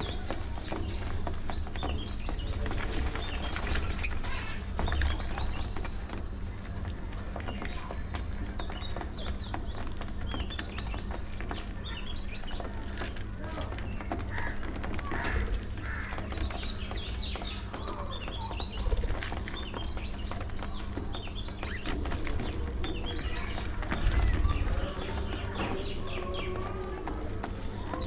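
A flock of budgerigars chattering with many quick, overlapping high chirps and warbles, without a break.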